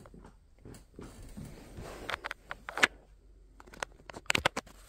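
Soft rustling with scattered brief taps and clicks, a hand patting and rubbing a dog's fur close to the phone's microphone. The loudest is a quick cluster of taps a little after four seconds in.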